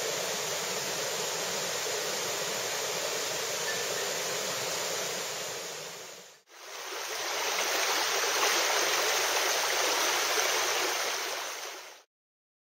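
River water running over a shallow riffle as a steady rushing wash. It fades out about halfway, fades back in, and stops just before the end.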